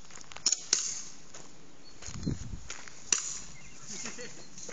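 Sharp snaps of airsoft guns firing: two close together about half a second in, another about three seconds in, with a dull low thump a little after two seconds.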